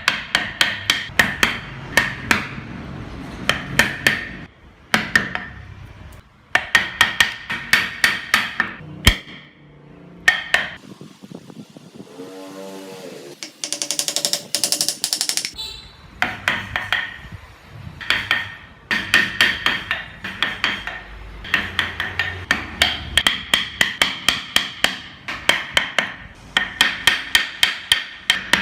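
Mallet tapping a carving chisel into wood in quick runs of sharp strikes, about five a second, with short pauses between runs. Around halfway the tapping stops for a few seconds and a higher hissing sound takes its place.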